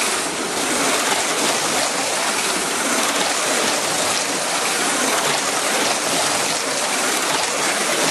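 HO-scale slot cars racing around a multi-lane track, making a steady, dense whirring hiss.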